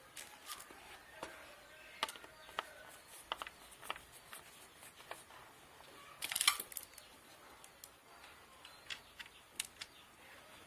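Scattered light clicks and knocks of a hard drive and its screws being handled and fitted into a DVR's metal case, with a louder rattling clatter about six seconds in.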